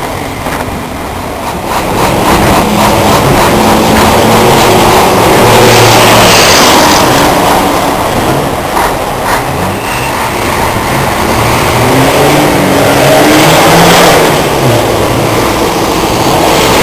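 Fórmula Truck racing trucks' diesel engines running hard as the trucks pass at speed, their engine notes rising and dropping, over the hiss of tyre spray on a wet track. The sound swells to its loudest about six and again about fourteen seconds in.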